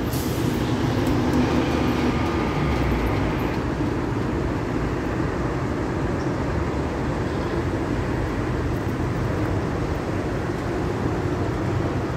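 Diesel freight locomotives running, a steady low rumble.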